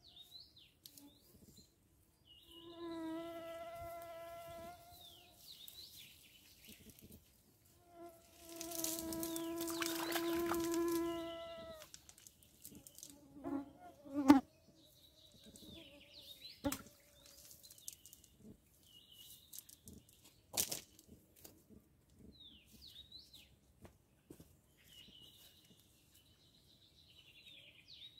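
A flying insect buzzing close to the microphone in two long, steady-pitched passes, a few seconds each, the second louder. Small birds chirp in between, and there is a sharp knock about halfway through.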